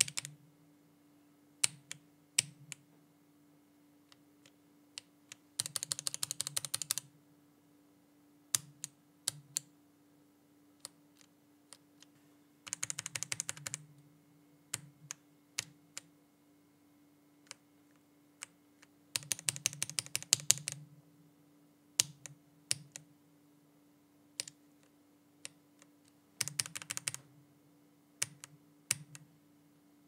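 Lubed budget linear mechanical keyboard switches in a VX5 Pro keyboard with a silicone dampener, including AKKO CS Radiant Red and Aflion Iceberg, each tested with one key. The key gets single keystrokes, then a burst of rapid presses about every seven seconds. A faint steady hum lies underneath.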